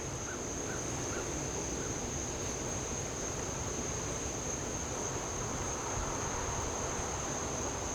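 Insects trilling steadily at one high pitch, over a faint low wind-like rumble of outdoor background.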